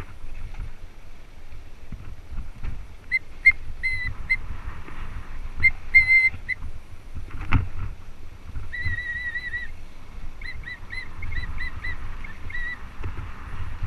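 Mountain bike rolling over a sandy, rocky dirt trail: a steady low rumble of tyres and wind on the camera, a thump from a bump about halfway through, and several runs of short high whistling squeaks, some wavering and some repeated quickly.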